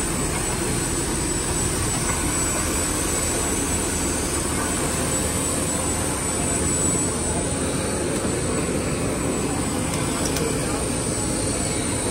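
Steady rush of noise with a constant high whine from a parked Boeing 757 on the airport apron, its main engines not yet started.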